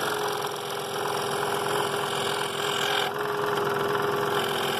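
Scroll saw running with its blade cutting through half-inch walnut: a steady mechanical hum with a held mid-pitched tone.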